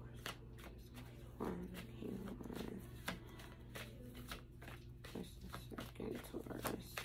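A deck of tarot cards being shuffled and handled by hand, with a run of short, sharp clicks and snaps. A low pitched, hum-like sound comes twice, about a second and a half in and again around five seconds in.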